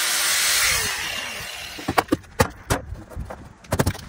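Electric angle grinder cutting metal, then winding down with a falling whine about a second in. A few sharp knocks and clatters follow as it is put down.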